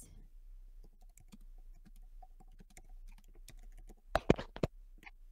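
Typing on a computer keyboard: a run of light key clicks, with a few louder clicks about four seconds in.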